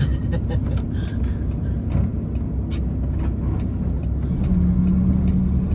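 Truck engine and road rumble heard from inside the cab while driving, a low steady noise; a steadier engine drone comes in about four seconds in, with a sharp click near the middle.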